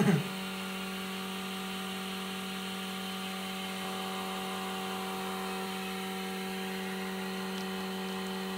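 Vacuum pump running with a steady hum, holding vacuum on the bag during a resin infusion of a carbon fibre laminate.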